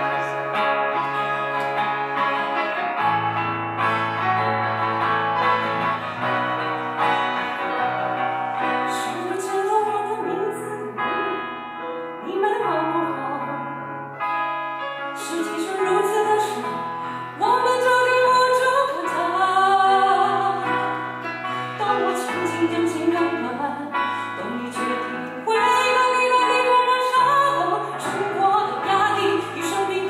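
Live pop song: a woman sings into a microphone over an acoustic guitar and a Yamaha electronic keyboard. The first stretch is instrumental, and the voice comes in about nine seconds in.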